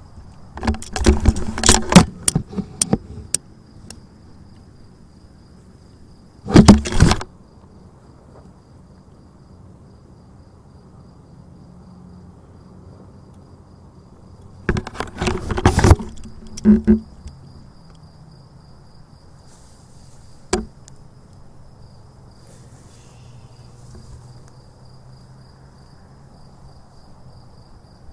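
A cricket trills steadily and faintly in the background. Three loud clusters of knocks and scuffs break in at the start, at about seven seconds and at about fifteen seconds, with a single sharp click at about twenty seconds.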